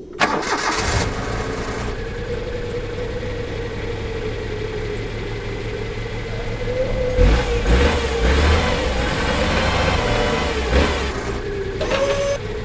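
Dubbed truck-engine sound effect: a large engine starts about a second in and settles into a steady running rumble, revving harder from about seven seconds in. A steady high hum runs underneath.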